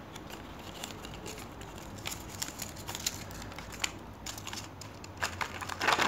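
Paper instruction leaflet being unfolded and handled, crinkling with scattered light clicks. Near the end comes a louder burst of crackling as the clear plastic blister tray is handled.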